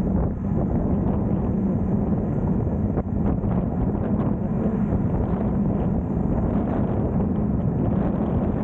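Wind buffeting the microphone over a steady vehicle engine hum and road noise, as heard while riding along a road.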